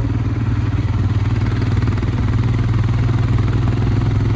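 Royal Enfield Himalayan motorcycle engine running steadily as a low, fast pulsing hum.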